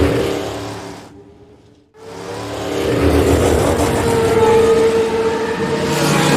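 Formula One cars running at speed. One car's high-pitched engine note fades away, with a brief near-silent gap about a second in. Then another car's engine rises in level and holds a steady high note as it goes by.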